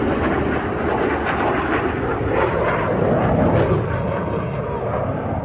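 Jet aircraft engine noise, a steady rushing noise.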